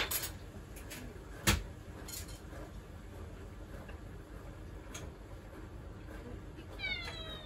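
Dishes and utensils clinking and knocking at a kitchen sink, a few scattered knocks with the loudest about a second and a half in. Near the end a cat starts a long meow that falls in pitch and then holds.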